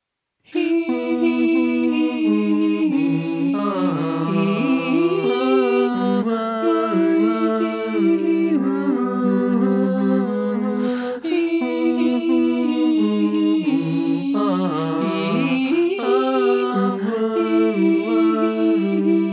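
Stacked, multitracked male backing vocals for a song's outro chorus, sung a cappella in close harmony with no instruments underneath. Held chords move with gliding lines. The vocals start about half a second in, and the phrase starts over after a brief break a little past halfway.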